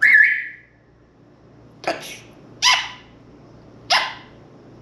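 African grey parrot calling: a loud, short bent whistle at the start, then three short harsh calls about a second apart, each dropping in pitch.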